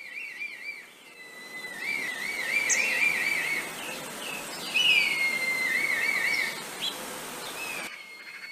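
Red kites calling with a haunting whistle. Each call is a high note that slides down and then breaks into a quavering, wavering trill. Several calls follow one another, the loudest about five seconds in.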